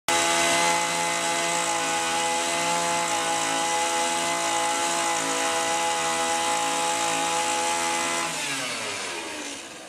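Handheld electric power drill running at a steady pitch, held against the rock wall. Near the end it winds down with a falling pitch as it is switched off.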